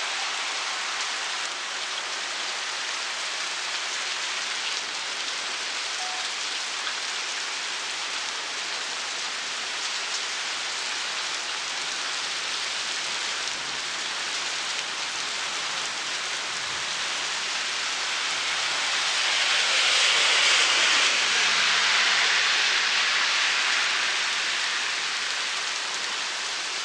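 Heavy rain falling on pavement during a thunderstorm, a steady hiss that swells louder for several seconds about two-thirds of the way through, then eases back.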